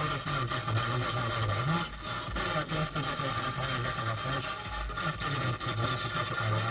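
Car FM radio tuned to 108.0 MHz, playing through the car's speakers: a low tone that wavers in pitch over steady hiss.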